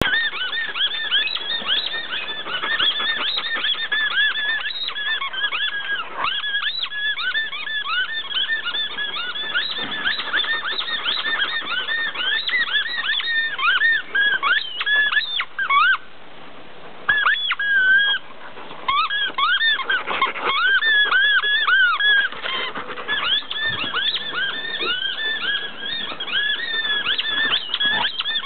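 Rubber squeaky dog toy squeaked over and over as a Bernese mountain dog chews it, in rapid runs of short high squeaks, several a second, with a couple of brief breaks a little past the middle.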